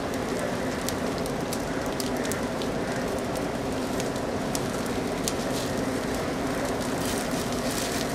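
Wood cremation pyre burning, with irregular sharp crackles and pops over a steady rushing noise.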